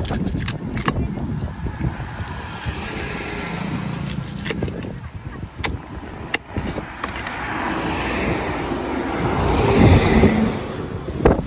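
Heavy cleaver chopping through a tilapia onto a wooden stump block, a few sharp knocks apart. A motor vehicle passes on the road, building to its loudest near the end.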